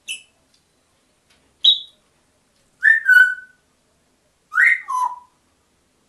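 African grey parrot giving short, clear whistles: a brief chirp, a single high whistle that drops in pitch, then two two-note calls, each stepping down in pitch.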